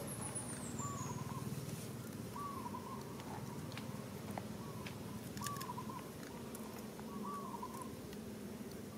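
Short, arched animal calls, repeated every one and a half to two seconds, with a few faint clicks and a brief high falling chirp at the start.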